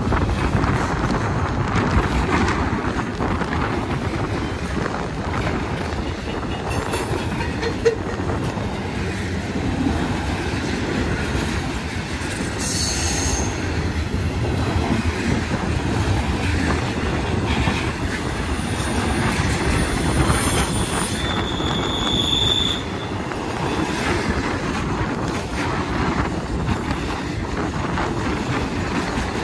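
Intermodal freight cars of a Union Pacific train rolling past close by: a steady rumble of steel wheels on rail, with many short clicks and brief high wheel squeals about thirteen seconds in and again around twenty-two seconds.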